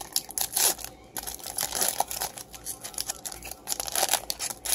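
Foil wrapper of a 2018 Topps Chrome baseball card pack being torn open and crinkled by hand: an irregular run of crackles and rustles, loudest near the end.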